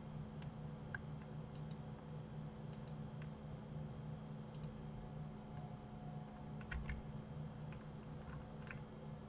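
Faint clicks of a computer mouse and keyboard used to edit a 3D model, several in quick press-and-release pairs, scattered every second or so over a steady low hum.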